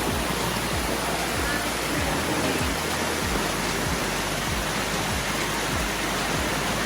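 Steady rush of a mountain stream with waterfalls, an even wash of water noise.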